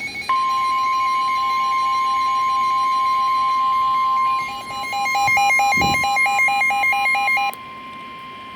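NOAA Weather Radio warning alarm tone, a steady single tone near 1 kHz, starting just after the beginning and holding throughout. Over it another electronic alarm beeps in a pulsing pattern, turning into a fast warble of about five beeps a second about halfway through, then cuts off near the end, leaving the alert tone alone and quieter.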